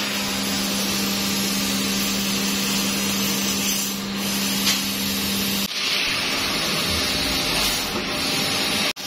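Sheet-metal laser cutting machine running: a steady hiss with a steady low hum under it. The hum stops suddenly a little past halfway while the hiss carries on.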